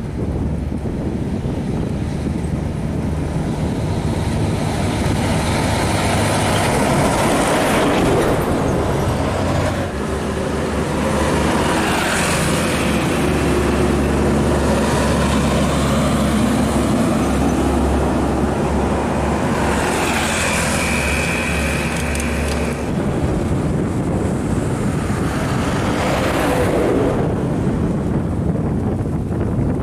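Heavy diesel trucks passing close by one after another, with a low engine drone and a swell of tyre and wind hiss as each goes past. The drone is loudest in the middle stretch.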